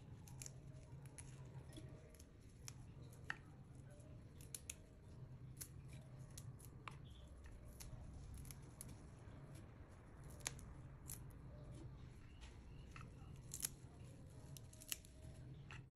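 Faint crisp snapping and tearing of curly parsley sprigs being plucked from their stems by hand, irregular small clicks over a steady low hum.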